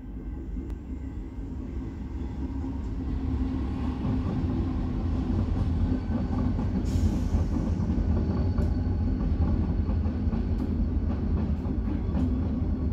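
Several diesel freight locomotives passing close by. Their low engine rumble builds over the first four seconds as they reach the crossing, then holds steady.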